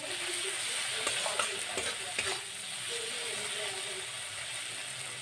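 Onion-tomato spice masala sizzling in a metal kadai as a spatula stirs and scrapes it against the pan, with a few sharper scraping strokes in the first half. It is the masala being fried (bhuna) until the tomatoes break down.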